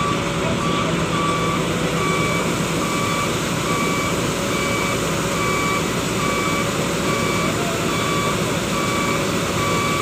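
Laverda combine harvesters running steadily while unloading wheat grain through the auger: an even, loud din of engine and machinery. A short electronic warning beep repeats about once a second over it.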